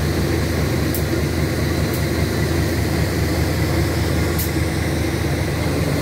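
Diesel-electric locomotive running with a steady low drone as the train pulls out of the station.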